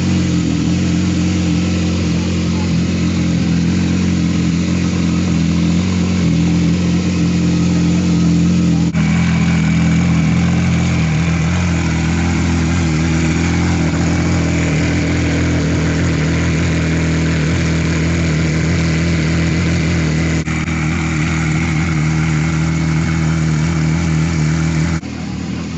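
Engine of the Lafitte car running steadily at idle, a loud, even note, with abrupt breaks in the sound about a third of the way in and near the end.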